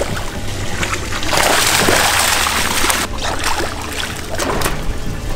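Water splashing at the surface beside a boat hull as a small mahi (dolphinfish) thrashes there. A longer rush of splashing starts about a second in and lasts nearly two seconds, followed by smaller splashes, over a steady low hum.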